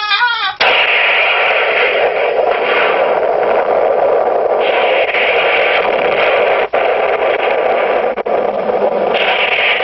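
A warbling electronic tone cuts off about half a second in, and loud, steady static hiss takes over, like blank videotape, with two brief dropouts near the end.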